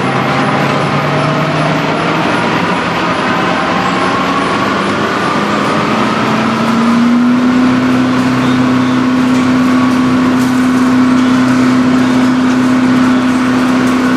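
Rotochopper EC-156 horizontal grinder, driven by a 300-hp electric motor, running loudly and steadily. Its hum climbs in pitch about six seconds in, then holds at the higher pitch.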